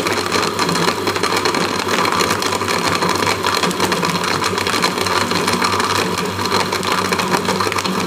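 Electric blender motor running steadily at speed, blending milk, sugar and ice pieces in its jar.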